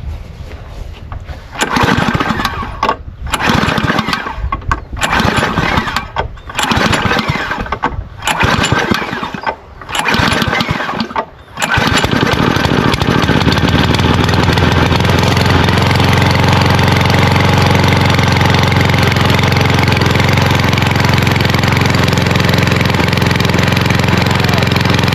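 Lawnmower engine being started after its carburetor has been cleaned of water and a rust-clogged nozzle: about six short bursts as it is cranked, then it catches about halfway through and runs steadily.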